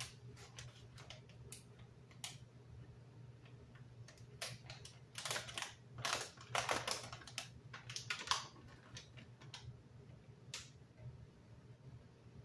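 A plastic bag of mini pepperonis crinkling as it is handled and torn open, with small irregular clicks and taps. The crinkling is busiest for a few seconds just past the middle.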